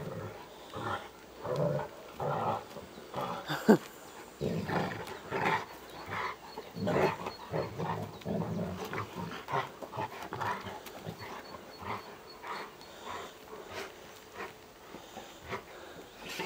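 Two Newfoundland dogs, one black and one black-and-white Landseer, play-fighting, growling and grumbling at each other in short repeated bursts, with one sharp louder cry about four seconds in.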